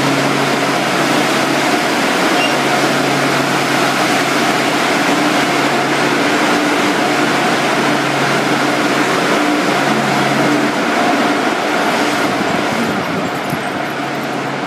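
Car wash machinery running: a loud, steady rushing noise over a low hum. The hum stops about two-thirds of the way through, while the rushing goes on, a little quieter near the end.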